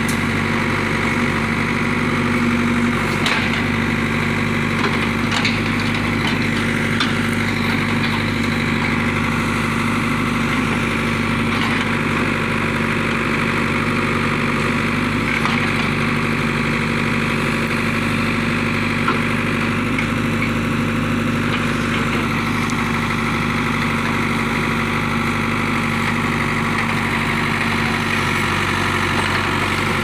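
Ford 655D backhoe loader's diesel engine running at a steady throttle while the backhoe works, digging out roots and pushing against trees. A few faint clicks and knocks sound over the engine.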